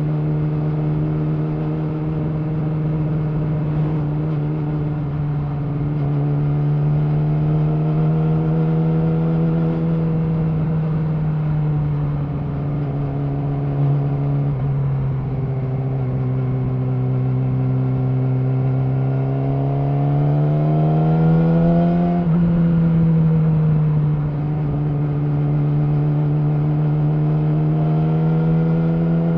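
Yamaha R6's inline-four engine through an Akrapovic slip-on exhaust, running at steady mid revs while riding. The pitch sags slowly, climbs over a couple of seconds about two-thirds of the way through, then drops back and holds steady.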